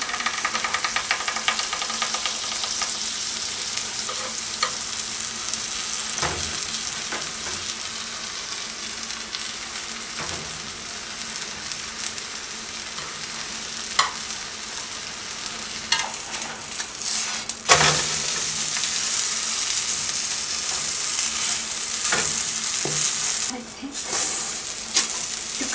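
Uttapam batter frying in butter on a hot pan, a steady sizzle with a few sharp clicks and scrapes on the pan. The sizzle grows louder a little past the middle.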